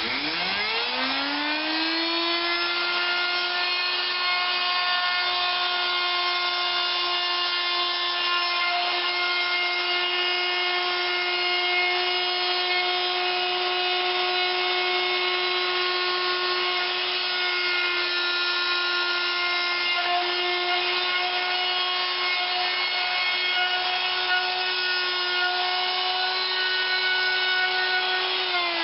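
Electric router spinning up as it is switched on, running at a steady high pitch while cutting slots with a homemade 6 mm cutter made from a drill bit, then winding down as it is switched off at the end.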